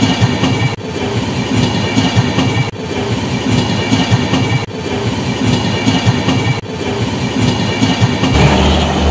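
A DEMU (diesel-electric multiple unit) passenger train running along the track, its wheels clicking over the rail joints. Near the end a steady low hum comes in.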